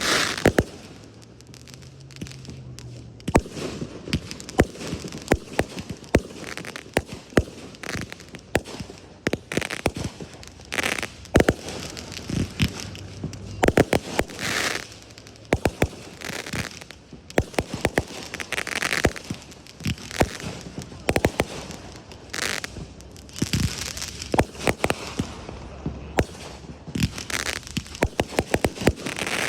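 Fireworks display: a dense run of sharp bangs from bursting shells, going off in quick, irregular succession, with stretches of hissing noise between the bangs.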